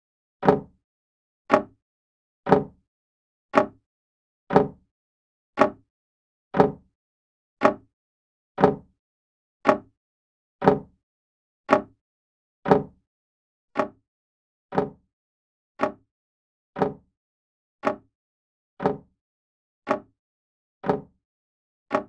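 Old grandfather clock ticking steadily, a short sharp tick about once a second.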